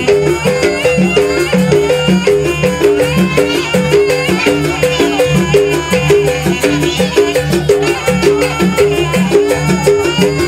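Jaranan dance accompaniment: a shrill reed pipe plays a wavering melody over a fast, repeating figure of tuned gong notes and steady drum strokes.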